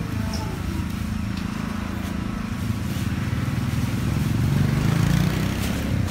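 Steady low rumble of a running motor-vehicle engine, swelling a little louder about four and a half seconds in.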